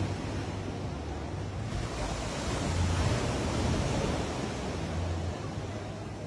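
Sea surf washing in, an even rushing that swells to its loudest about three seconds in, with wind buffeting the microphone.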